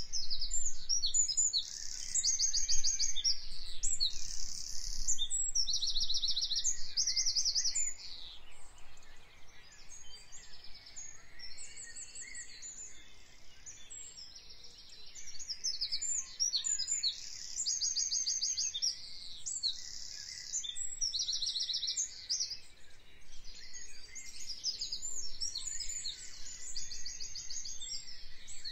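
Birds singing: rapid high trills and chirps repeated phrase after phrase, going quieter for a while about eight seconds in, then picking up again.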